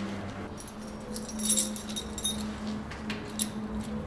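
Keys clinking and jingling for about a second as the ride-on mower's ignition key is handled, followed by a couple of short clicks near the end, over a steady low hum.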